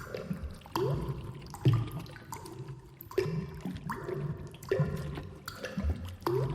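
Designed alien cave ambience: watery drips and plinks, one every second or so, some with a short rising pitch glide, over low steady tones.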